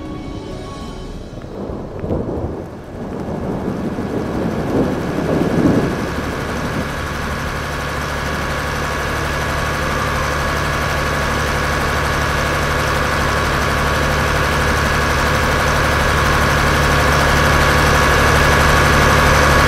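Thunderstorm ambience: thunder rumbling with rain in the first several seconds. This gives way to a steady, dense rushing sound with a low hum that grows gradually louder.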